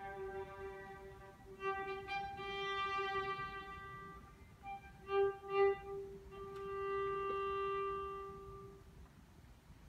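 Solo violin with orchestra playing a slow passage of long held notes over a steady lower note, fading away about nine seconds in.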